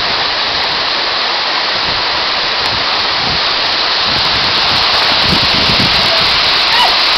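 A waterfall more than 30 metres high, its falling water making a steady, dense rush.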